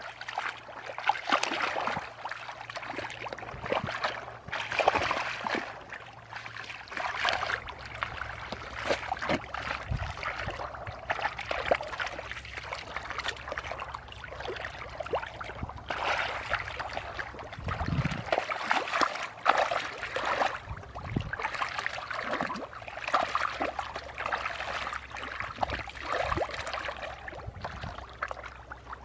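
Hands sloshing and splashing in shallow muddy water in irregular bursts, as fish are groped for by hand through the mud.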